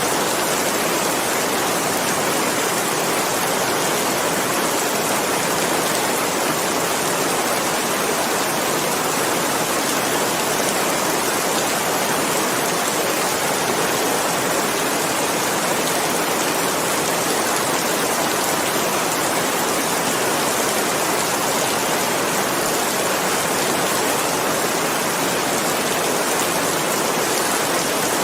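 Steady, unbroken rain noise, an even hiss with no distinct drops or thunder.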